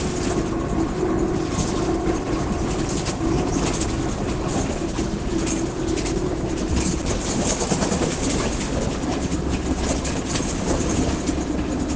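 Caio Apache Vip IV city bus under way, its differential growling with a steady droning tone that is strongest in the first half and fades later. Rattles from the bus and road rumble sound throughout.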